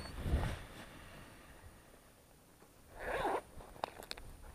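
A zipper pulled once in a short rasp about three seconds in, after some soft handling rustle at the start.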